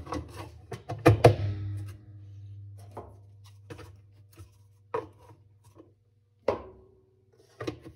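Plastic fabric softener dispenser cap being pressed and snapped onto a Speed Queen washer agitator: a scattered series of short, sharp plastic clicks and knocks, about nine in all.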